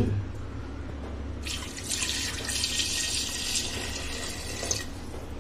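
Tap water pouring into a pressure cooker pot over potatoes, starting about a second and a half in and stopping shortly before the end. A single knock right at the start.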